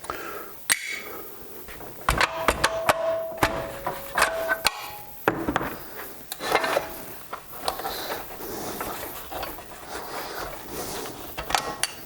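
Irregular metallic clinks and knocks of engine parts and tools being handled while the piston and connecting rod are worked out of a small Briggs & Stratton mower engine's cylinder. A few strikes ring briefly with a clear metal tone.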